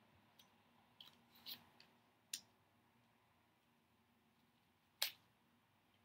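Faint clicks and light snaps of tarot cards being flicked through in the hand and laid on a table, in a quiet room; the sharpest snap comes about five seconds in.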